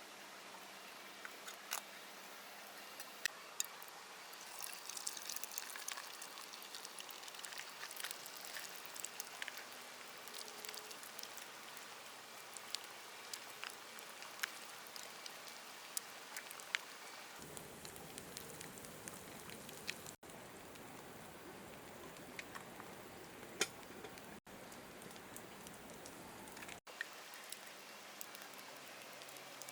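Rain falling steadily, with scattered drops pattering close by. The sound shifts abruptly a little past halfway.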